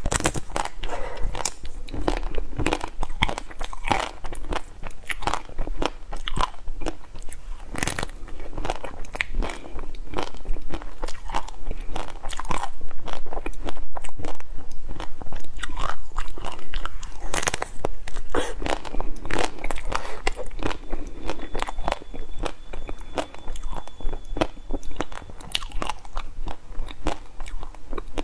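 Close-miked biting and chewing of chocolate-coated ice cream bars: the hard chocolate shell cracks and crunches in many small, irregular bites, with chewing in between.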